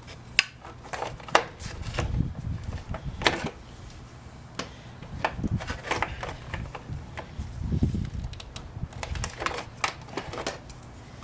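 Irregular light clicks and taps of small metal and plastic parts and hand tools being handled while a motorcycle turn-signal light is fitted, over a low steady hum.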